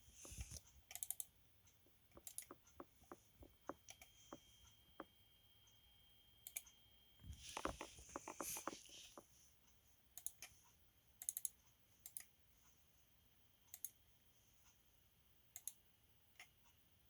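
Faint, scattered clicks and taps, irregularly spaced, with a short cluster of rustling clatter about eight seconds in.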